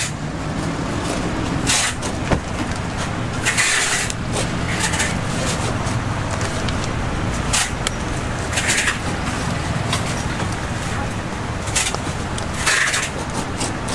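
A steady low engine-like hum with short hissing noises at uneven intervals.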